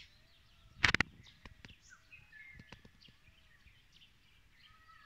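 Small forest birds chirping and whistling faintly. About a second in there is one brief loud rustling crackle, followed by a few faint clicks.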